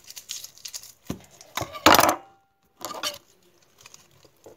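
Garlic being peeled with a kitchen knife: small crackles and clicks of dry garlic skin and blade, with a louder brief noisy burst about two seconds in and another shorter one a second later.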